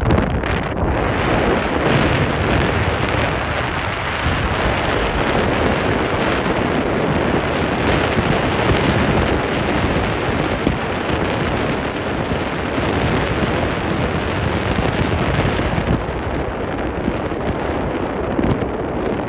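Wind blowing hard across the microphone on a moving ferry's open deck, a steady loud rush of noise.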